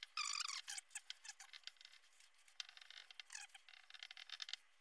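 Dry-erase marker writing on a whiteboard: quick faint scratching strokes with several short squeaks, the loudest squeak just after the start.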